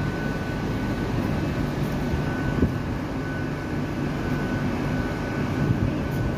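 Hitachi Class 800 bi-mode train standing at the platform with its doors open, its underfloor diesel engines running: a steady low hum with a thin high whine over it. A single sharp knock about two and a half seconds in.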